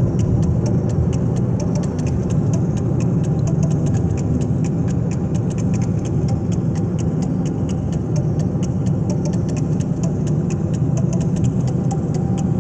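A steady mechanical hum, like an idling motor, with a fast, even ticking over it.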